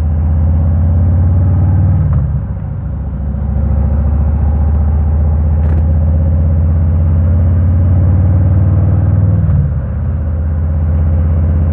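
Harley-Davidson Road King's V-twin engine running steadily while riding, with two brief dips in the engine note, about two seconds in and near the end.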